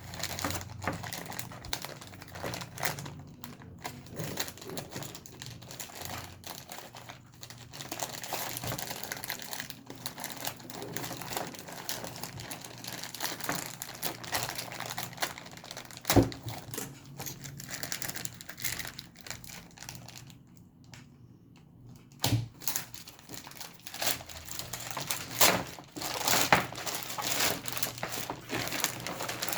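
Continuous crinkling and rustling of crinkly material being handled, with two sharp, louder pops about 16 and 22 seconds in.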